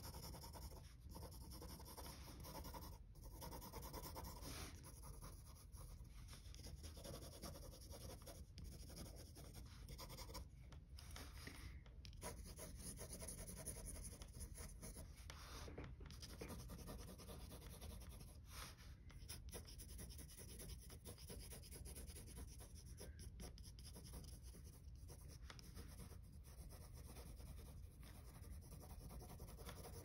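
Faint scratching of a mechanical pencil's lead on drawing paper, many short sketching strokes one after another.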